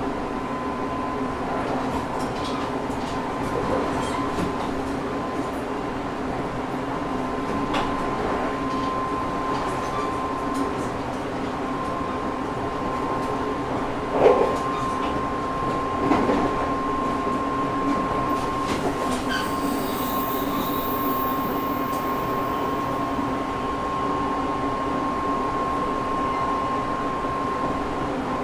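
JR Shikoku 8000 series electric multiple unit running at speed, heard from inside the car. There is a steady rumble with a constant whine, and two louder knocks come about 14 and 16 seconds in.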